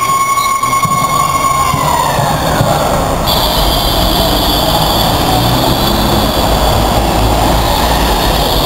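City street traffic: cars and a bus passing, with engine rumble and tyre noise. A steady high squeal at the start slides down in pitch and fades out about two seconds in.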